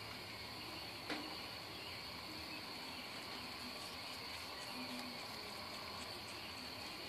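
Crickets trilling steadily on one high note, with a single sharp click about a second in.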